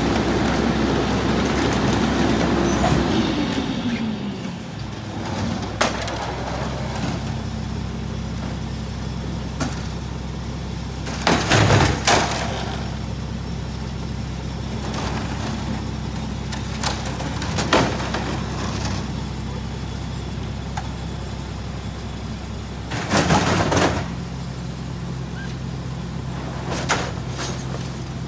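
Rear loader garbage truck's diesel engine running at a raised speed that falls away to a steady idle about four seconds in, as the packer cycle ends. Scattered bangs, cracks and crashes follow, loudest twice, as boards and panels are thrown into the rear hopper.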